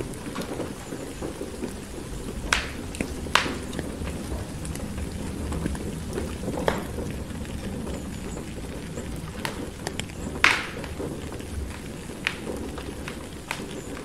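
Steady rain with a low rumble under it, and a wood fire crackling with scattered sharp pops, the loudest about ten and a half seconds in.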